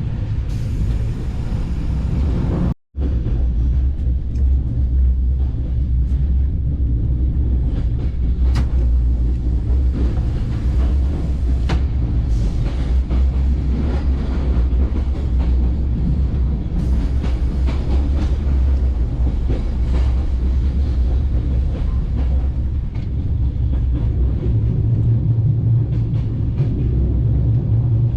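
Bulgarian State Railways passenger train running along the line: a steady, loud low rumble of the carriage on the rails with a few sharp clicks. The sound drops out briefly about three seconds in.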